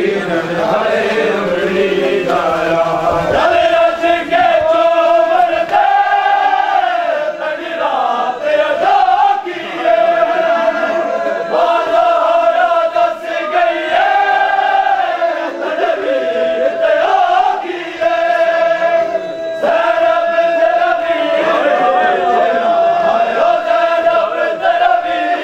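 Men's voices chanting a noha, a Shia mourning lament, together in long phrases of held notes, pausing briefly between phrases.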